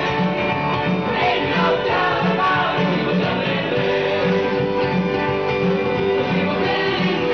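Dance music with guitar over a steady beat.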